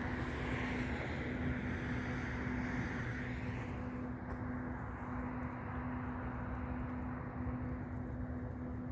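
Steady outdoor rumble of distant traffic, with a constant low hum running underneath; the higher hiss thins out a few seconds in.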